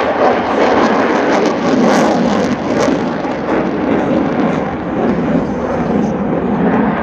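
Loud, steady roar of a Boeing EA-18G Growler's twin General Electric F414 turbofan jet engines as the jet flies overhead.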